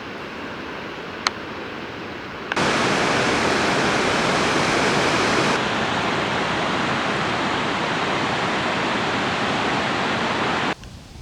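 Steady rush of water, a waterfall or river rapids. It is moderate at first, with one sharp click a little over a second in. It jumps suddenly much louder at about two and a half seconds and cuts off abruptly shortly before the end.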